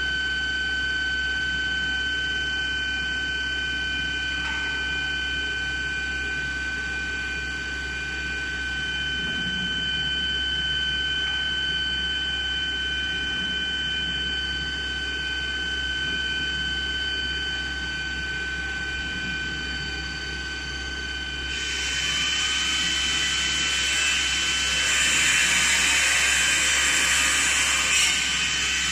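CNC pipe drilling machine running, with a steady high whine over a low hum. About three-quarters of the way in, a loud harsh hiss sets in as the drill cuts dry into the metal pipe without coolant, growing louder near the end.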